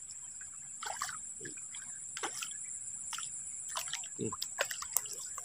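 A hooked climbing perch splashing at the water's surface in a series of short, irregular splashes as it is reeled in toward the bank.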